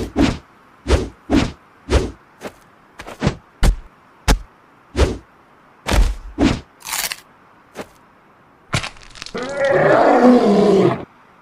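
Cartoon fight sound effects: a quick run of short, sharp hits, about two a second, followed near the end by a lion roar sound effect lasting about two seconds.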